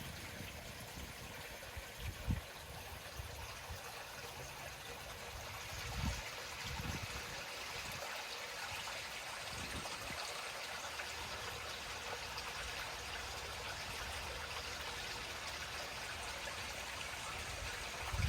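Lake water trickling and lapping in a steady, gentle wash that grows a little fuller about six seconds in, with a few soft low thumps.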